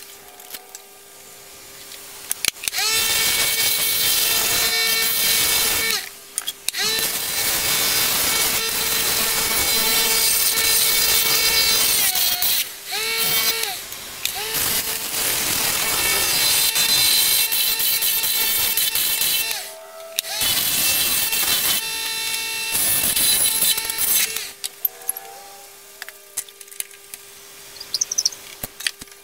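Wood lathe running with a steady hum while a hand-held turning tool cuts the spinning spalted maple workpiece: a loud rasping scrape with a ringing squeal, in four passes of several seconds each with brief breaks between. About 24 s in the cutting stops, leaving the lathe hum and a few light clicks.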